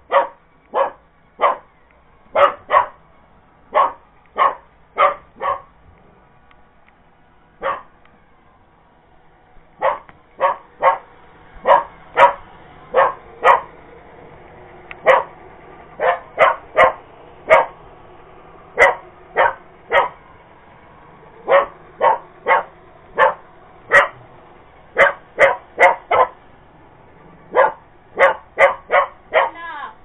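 Cocker spaniel puppy barking repeatedly at a robot vacuum. The barks are short and sharp and come in quick volleys, with a lull of a few seconds about a fifth of the way in.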